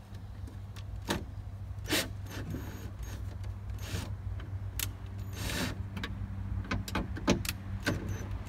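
Scattered clicks, knocks and light clatter of tools and metal door hardware being handled inside a car door, over a steady low hum. A short rustle comes about five and a half seconds in.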